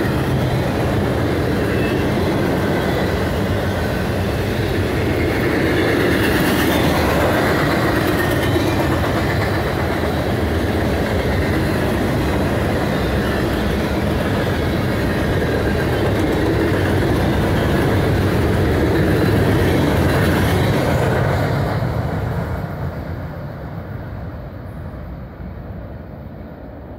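Cars of a mixed freight train rolling past, steel wheels clattering over the rails in a steady, loud noise. About 22 seconds in the last car goes by and the sound fades away.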